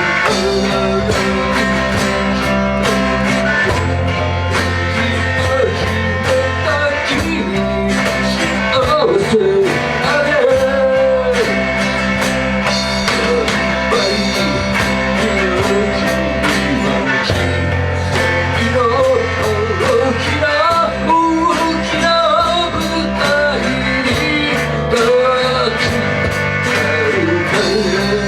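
Amateur band playing a rock song with guitar, bass and a steady beat, a voice singing the melody over it.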